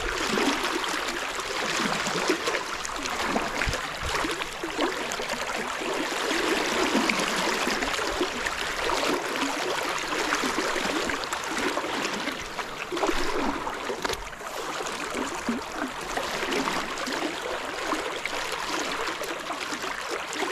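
Fast-flowing river water rushing steadily, a continuous even noise.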